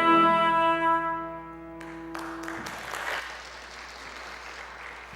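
The final held note of a wind-instrument solo with accompaniment, which stops about two seconds in. Applause from the congregation follows.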